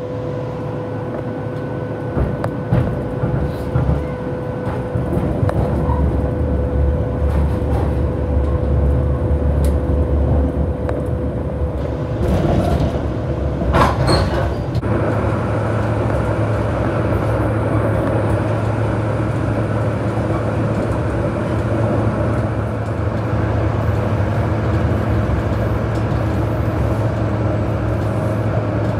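Electric tram running, heard from inside the car: a steady rumble of wheels on rail with a thin steady whine, growing louder over the first few seconds as the tram picks up speed from a stop. A short rattle of clicks comes about thirteen to fourteen seconds in, after which the running settles into an even low hum.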